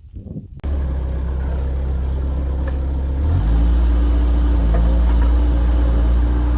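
Bobcat 753 skid steer's diesel engine running at a low, steady speed, then throttled up quickly about three seconds in and holding at a higher speed.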